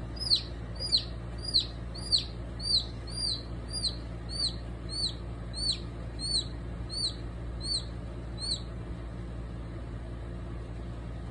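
A domestic chick peeping while held in a South American rattlesnake's jaws: short, high, downward-falling peeps at about two a second that grow weaker and stop about eight and a half seconds in, as the venom takes effect.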